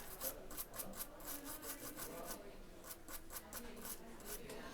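Quick, irregular scraping strokes, several a second, on a small hard surface at the repair bench. They thin out to a few scattered strokes near the end.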